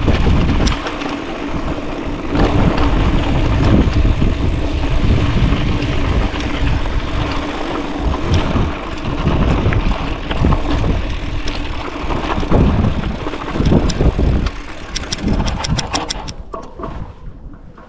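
Mountain bike rattling and knocking over a rough trail, with wind buffeting the action-camera microphone. Near the end it quiets to a run of quick ticks.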